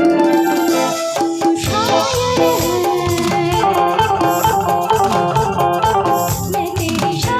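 Live band playing a Hindi film song instrumentally, with keyboard and a steady percussion beat, through a PA system.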